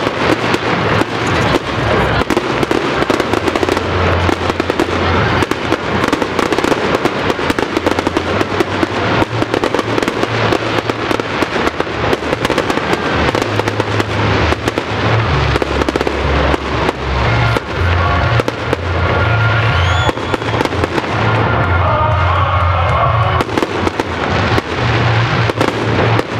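Aerial fireworks going off in quick succession: continuous crackling and popping, many bangs a second.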